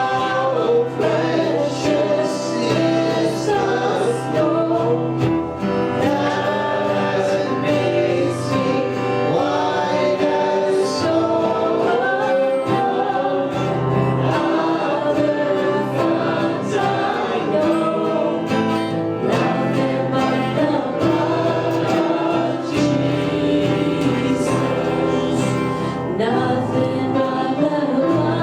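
Congregation and worship band singing a gospel song, with instrumental accompaniment.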